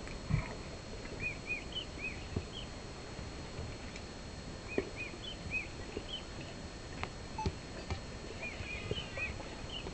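Male lion feeding on an impala carcass: scattered wet tearing and crunching chews and soft thuds as it pulls at the meat. Short repeated bird chirps sound in the background.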